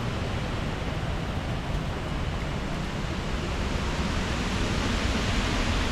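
Strong hurricane wind blowing steadily, with low buffeting of the wind on the microphone; the rush grows somewhat louder near the end.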